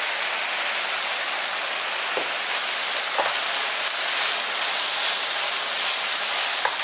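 Fish cakes and sliced onion sizzling steadily in oil and soy sauce in a frying pan over high heat, with a couple of faint taps from the silicone spatula stirring them about two and three seconds in.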